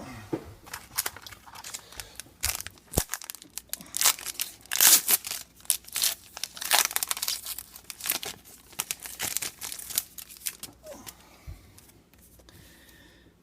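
Trading card pack wrapper being torn open and crinkled in the hands, a rapid, irregular crackling that dies down near the end.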